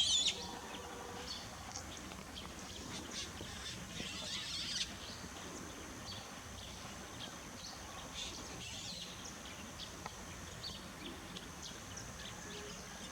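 Small birds giving scattered short, high chirps, with a brief busier run of calls about four seconds in, over a faint steady high tone.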